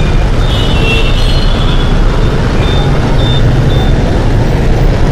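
Steady city traffic noise, with city buses running along a bus lane and motorbikes in the road, and a few faint short high squeals.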